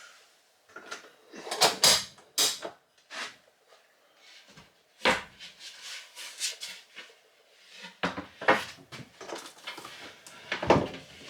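Irregular knocks, clunks and scrapes from hands-on building work in a small enclosed space. The loudest hits come about two seconds in, around five seconds and near the end.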